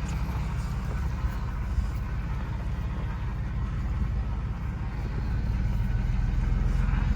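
Truck engine running as it drives slowly across a pasture, a steady low rumble that grows louder about five and a half seconds in.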